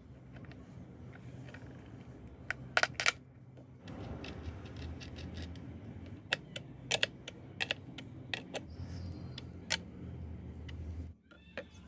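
Scattered sharp metal clicks and clinks as copper cable lugs, a bolt and a nut are handled and fitted to the thick output cables of a microwave oven transformer, with a small spanner tightening the nut near the end.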